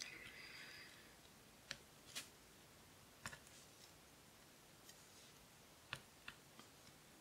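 Faint, irregular little clicks, about half a dozen, as a diamond painting drill pen picks up square resin drills and presses them onto the sticky canvas.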